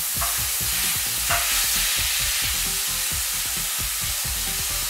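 Spiralized zucchini noodles sizzling in a hot pan as they are dropped in, a steady hiss with rapid crackles.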